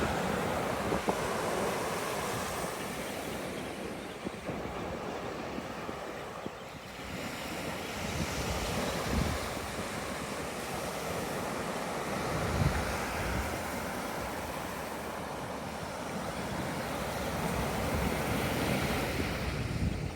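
Ocean surf washing onto the beach in a steady wash, with wind buffeting the microphone in a few low rumbles, most strongly about nine and twelve and a half seconds in.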